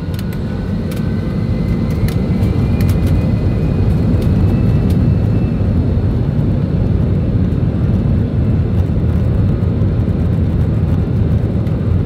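Airbus A320 cabin noise from a seat over the wing: a low engine rumble that grows over the first few seconds and then holds steady, with a faint rising whine and a few light clicks near the start.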